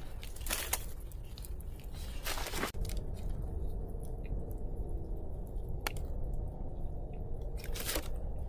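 Four brief crunching, crinkling handling noises over a steady low background rumble.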